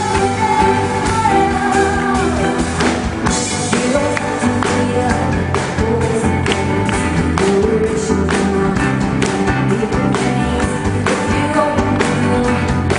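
Pop song with a singing voice over band accompaniment, a steady beat and guitar.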